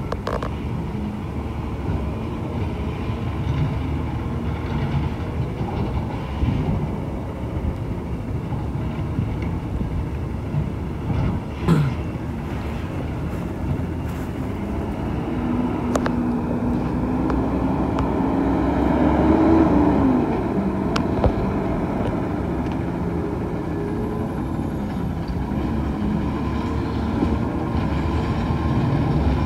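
Garbage truck's diesel engine running steadily as it works the street, with a whine that rises through the middle and drops off about two-thirds in. A few sharp knocks are mixed in.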